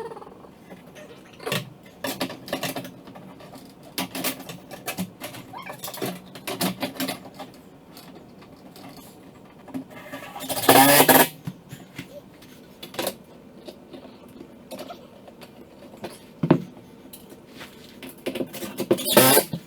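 Scattered clicks, knocks and clatter of handling work, with a loud noisy burst of under a second about eleven seconds in and a shorter one near the end.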